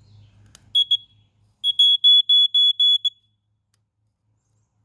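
First Alert SA88 smoke alarm sounding briefly as its battery is put in, a short false alarm: two short high-pitched beeps, then a run of six rapid beeps, about four a second, before it stops.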